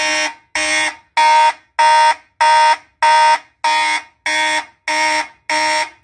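Fire alarm horn on a Simplex 2001 panel sounding in march-time code: about ten evenly spaced blasts, roughly one and a half a second, set off by the panel's zone alarm test switch. The blasts stop just before the end.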